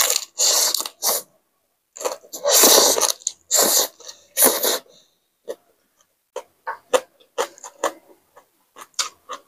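Close-miked slurping of khao pun rice noodles in several loud, hissing bursts over the first five seconds, then wet chewing and lip smacks as short clicks to the end.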